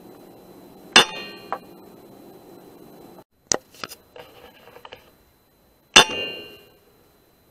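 Two shots from a Kral NP-02 pre-charged air rifle, about five seconds apart, each a sharp crack with a short metallic ring. Lighter clicks and a little rustling come in between.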